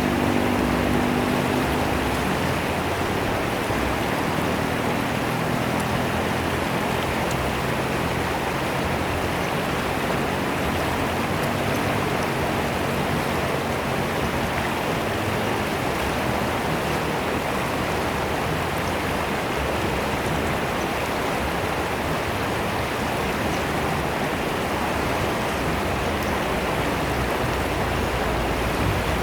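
Fast-flowing river water rushing and splashing in a steady, unbroken stream.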